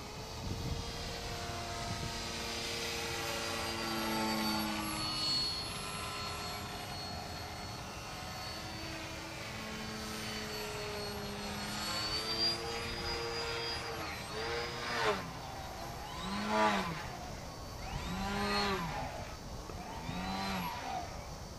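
Electric motor and propeller whine of a small foam electric 3D RC airplane in flight. For the first part it holds fairly steady with slow changes in pitch. From about 14 s in it swells and drops in pitch and loudness about every two seconds, four times.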